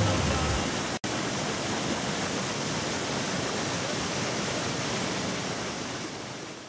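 Waterfall and whitewater rushing steadily. The tail of background music ends just after the start, the sound drops out for an instant about a second in, and it fades out near the end.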